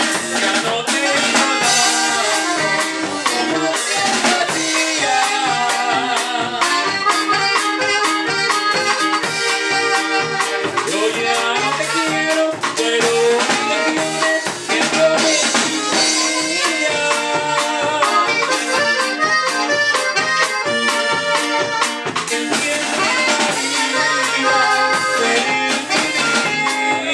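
Live norteño-style band playing: button accordion and alto saxophone over a drum kit and guitar, with a steady drum beat throughout.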